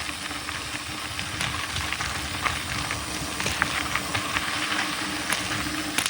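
Mountain bike rolling along a dirt trail: tyre noise on the dirt with scattered sharp clicks and rattles from the bike, over a faint steady hum.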